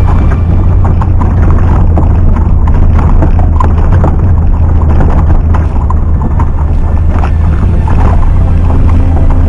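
Suzuki Vitara engine running steadily as a low drone while off-roading, with wind buffeting the microphone and scattered knocks over it.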